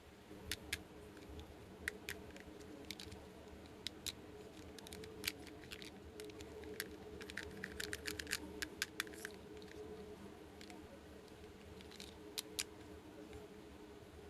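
Light, irregular clicks and taps of small plastic miniature toy pieces being handled, with a quick run of clicks about halfway through, over a faint steady hum.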